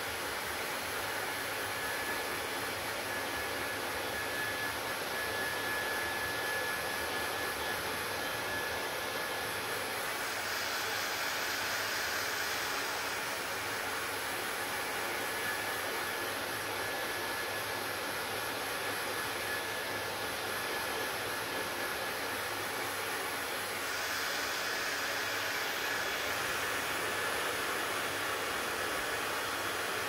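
Handheld hair dryer running steadily, a rushing blow of air with a faint thin whine in it. The hiss turns brighter twice, about ten seconds in and again near the end.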